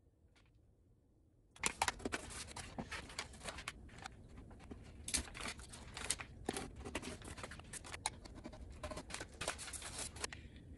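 A utility knife blade cutting around a circle in a thin translucent sheet over kraft paper: a dense run of crackly scratching and rasping strokes. It starts abruptly about a second and a half in and stops shortly before the end.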